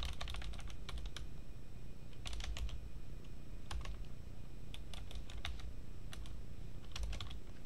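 Computer keyboard typing in short runs of keystrokes separated by pauses, over a low steady hum.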